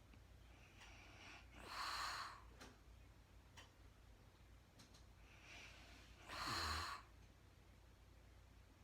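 A sleeping woman breathing slowly and heavily: two loud breaths about four and a half seconds apart, the second with a brief low snore in it.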